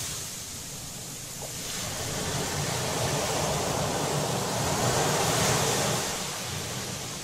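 Ocean surf washing up on a sandy beach, a steady hiss of breaking foam that swells louder in the middle and then ebbs away.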